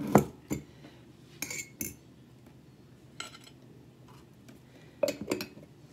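Metal fork clinking against a ceramic dinner plate: a few short, scattered clinks, with a quick cluster of them about five seconds in.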